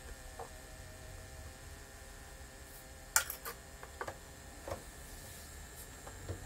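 Technics SL-5 turntable running at 33⅓ rpm during speed adjustment: a faint steady mains hum with a thin high whine, broken by a handful of small clicks and ticks, the sharpest about three seconds in.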